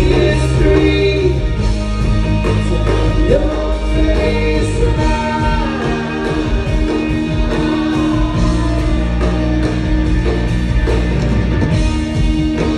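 Live rock band playing, electric guitar over a steady bass, with a singer's voice carrying the melody.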